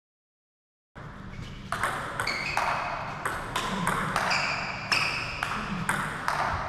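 Table tennis rally: the celluloid-type ball knocks off bats and bounces on the table, one player chopping with long-pimpled rubber against the other's topspin. The sharp, ringing knocks come about two a second, starting about a second in.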